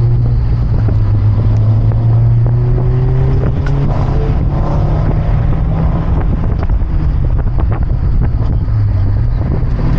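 Car engine running under way, heard with wind noise on the microphone; its note steps up in pitch about three seconds in and dips briefly near the end before picking up again.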